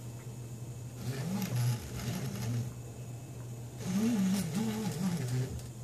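3D printer Z-axis stepper motors whining through two short moves, about a second in and again near four seconds, their pitch rising and falling as they lower the print head toward the bed. A steady low hum runs underneath.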